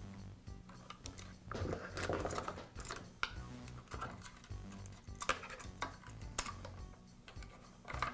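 Light clicks, taps and rustles of hands working the fuel line and fittings on a string trimmer's plastic fuel tank, busiest about two seconds in, with a few sharp clicks later, over faint background music.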